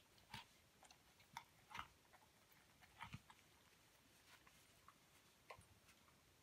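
A young Hamiltonstövare mouthing and chewing a ball: faint, irregular soft clicks and crunches a few at a time.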